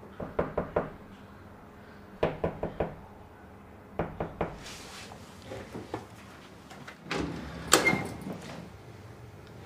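Knuckles rapping on a wooden apartment door in quick groups of three or four knocks, repeated several times, with a single louder bang near the end.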